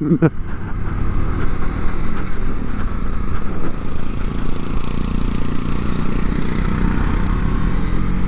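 KTM Duke 390's single-cylinder engine running at a fairly steady speed as the motorcycle is ridden, a dense low rumble with a fast, uneven flutter.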